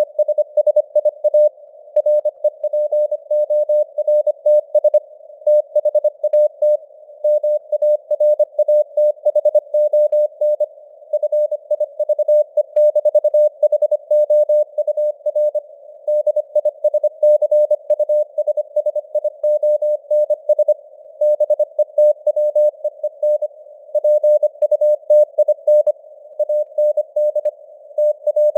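Morse code (CW) tone of about 600 Hz keyed at 25 words per minute: a fast run of short and long beeps with brief gaps between letters and words. A narrow band of simulated radio hiss surrounds the tone.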